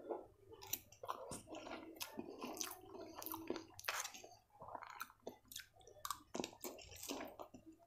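Close-miked chewing of veg chow mein noodles, with a dense run of short, sharp mouth clicks and smacks throughout.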